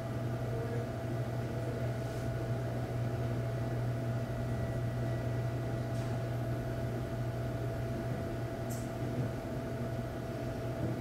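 Steady low electrical hum with hiss and a faint high tone, with a few faint ticks.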